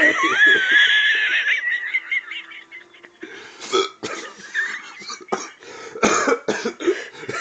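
A person hiccuping in a hiccup attack: a string of short, sudden gulping hiccups over several seconds. They follow a drawn-out high-pitched vocal sound with wavering pitch at the start.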